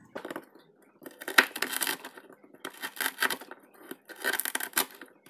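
Santoku knife cutting through crispy fried pork rinds (chicharrones) on a wooden cutting board: crackling crunches in several bursts, the sharpest about one and a half seconds in.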